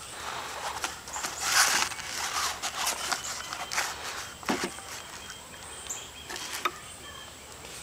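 Rustling with scattered light knocks and clicks of handling: the cloth sling and ropes of a homemade wooden trebuchet being arranged as a softball is loaded into the sling. The loudest rustle comes about one and a half seconds in.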